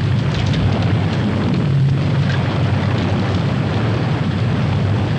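A steady, deep rumbling roar that holds level throughout, with a noisy hiss above it: a TV soundtrack's storm or rumble sound effect.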